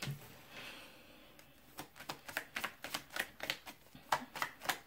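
Tarot deck being shuffled by hand: a quick run of card slaps and clicks, about three or four a second, starting a little under two seconds in.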